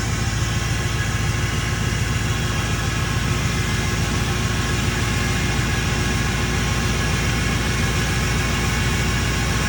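Ford 6.4 Power Stroke twin-turbo V8 diesel idling steadily, with an even, unchanging note.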